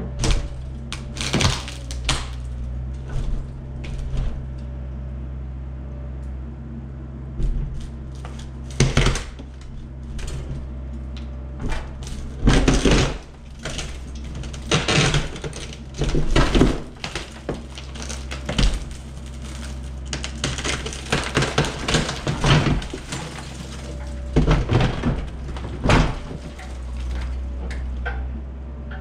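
Excavator's diesel engine running steadily while the building is torn apart: irregular cracks, crashes and clatters of breaking wood and masonry, heaviest in a cluster about halfway through. Heard from inside the building being demolished.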